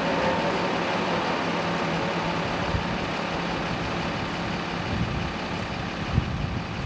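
Cummins 6.7-litre inline-six turbo diesel with a 67 mm turbocharger running on a chassis dyno, its rear wheel spinning on the rollers. The steady engine, tyre and roller noise eases off gradually.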